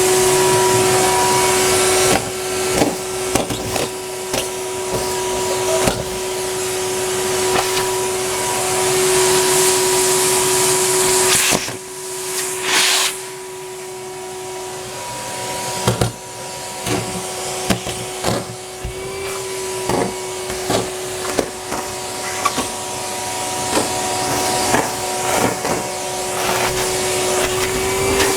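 Numatic Henry HVR200A2 canister vacuum cleaner running steadily with a steady motor whine, while bits of party debris such as paper and hair wrappers rattle and click up the hose. The airflow sound dips briefly about twelve seconds in, then picks up again.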